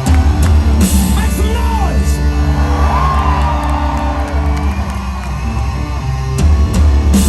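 Loud rock music: heavy sustained guitar and bass chords with drums and cymbal crashes about a second in and near the end, a singer's voice over it, and whoops and yells from the crowd.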